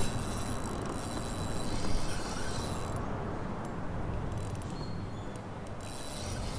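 Fishing reel being cranked in spells, its gears whirring and clicking, over a steady low rumble.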